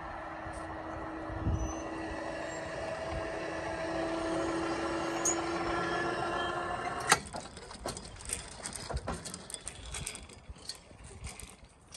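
Level crossing barrier machines whining steadily as the booms lift. The whine cuts off about seven seconds in with a sharp clunk as the barriers reach the upright, followed by scattered light clicks and knocks.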